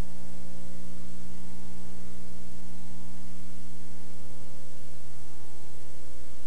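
Steady electrical hum with several overtones over a bed of hiss, unchanging throughout.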